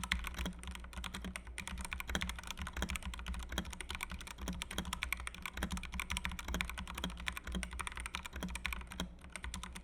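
Digital Alliance Meca Air S mechanical keyboard with Otemu switches being typed on in a fast, continuous run of keystrokes, many clicks a second.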